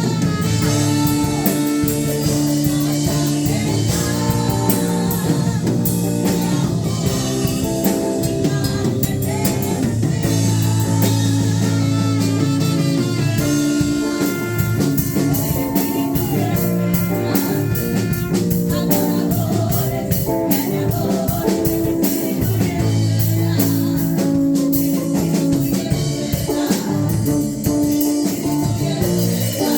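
Live worship band playing a song: guitar and drum kit with singing.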